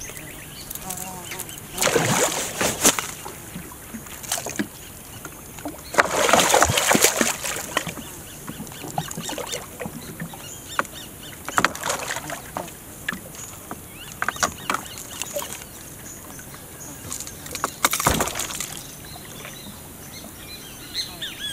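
Water splashing and sloshing around a small boat in three loud bursts, about two seconds in, six seconds in and near the end, with scattered short knocks between them.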